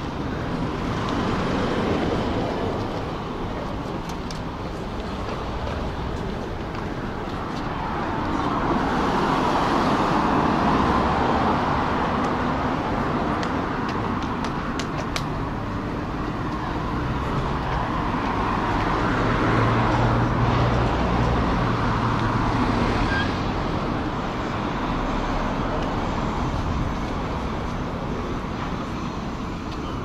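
Street traffic: cars going by on a multi-lane road, the tyre and engine noise swelling and fading as each one passes, with a low engine hum growing louder about twenty seconds in.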